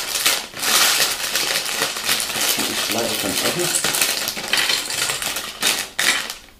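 Sealed plastic bags of LEGO pieces being handled and piled up: the plastic film crinkling while the bricks inside clink and rattle together.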